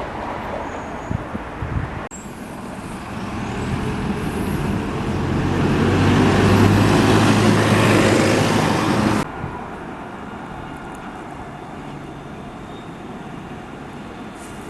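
A road vehicle passing close, its engine hum and road noise building over about four seconds to a peak, then cut off suddenly; a quieter steady traffic background follows.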